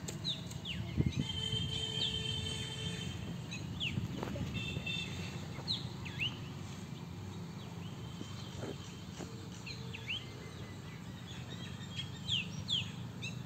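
Small birds chirping over a steady low background noise, with many short, quick downward-sliding chirps repeating throughout and a few held high notes in the first few seconds.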